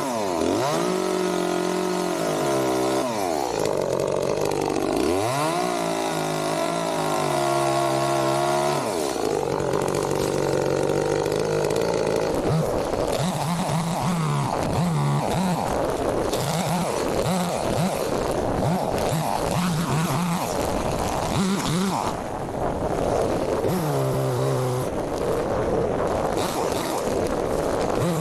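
Small gas engine of a chainsaw-type trimming tool revving up and down repeatedly for the first several seconds, then running unevenly in short surges for the rest.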